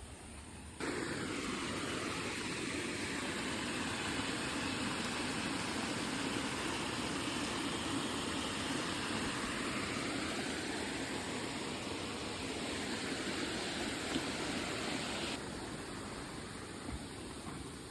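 A steady rushing noise cuts in abruptly about a second in, holds evenly, and loses its higher part near the end.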